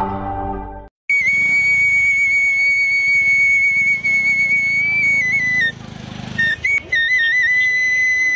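After a second of fading intro music, a side-blown bamboo flute (bansuri) plays long, high held notes with small ornamental turns, stepping slightly down in pitch about five seconds in, with a brief break in the tone around six seconds.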